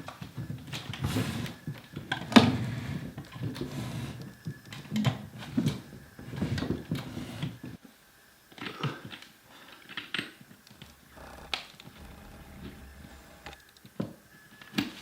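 Irregular rustling and handling noise with scattered clicks and knocks, the sharpest click about two seconds in; after a brief lull near the middle, only separate clicks remain.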